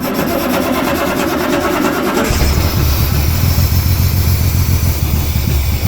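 1938 SS Jaguar 3½ Litre's straight-six engine cranked by its starter motor with a fast, even rhythm, catching about two seconds in and running with a steady low rumble.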